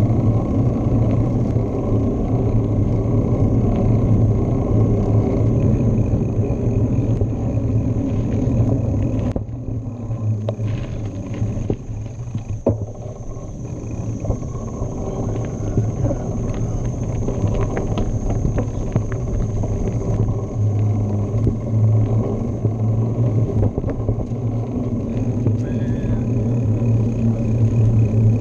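Steady rumble of wind on the microphone and tyres rolling under a moving bicycle. Partway through it turns somewhat quieter, with scattered clicks and rattles as the bike rides on a dirt trail.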